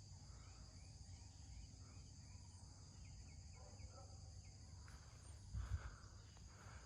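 Near silence in a field, with a steady high-pitched insect drone and a few faint chirps, and one brief faint sound about five and a half seconds in.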